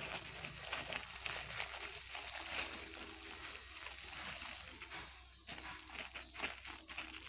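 Water sloshing in a plastic tub as mustard oil cake is stirred in by a hand in a plastic bag, with the bag crinkling and a crackly fizz from the soaking cake. It grows quieter after about five seconds.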